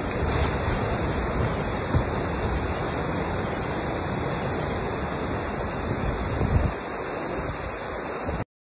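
A river in flood rushing steadily, a constant roar of fast, muddy water with a low rumble and a couple of brief dull thumps; it cuts off suddenly near the end.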